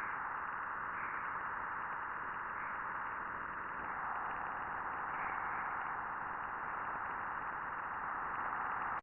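NASA space recording, electromagnetic (radio/plasma-wave) signals from a planet or comet converted into audible sound: a steady, static-like hiss with slight swells, cutting off suddenly at the end.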